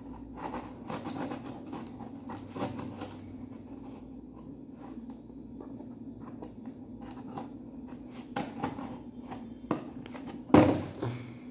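A cardboard box being cut and scraped open with a handheld tool: irregular scratching and scraping strokes against the cardboard and tape, with one louder sudden sound about ten and a half seconds in.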